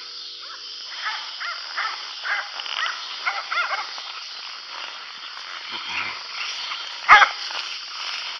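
Herding dogs barking: a quick string of barks over the first few seconds, then one loud, close bark near the end.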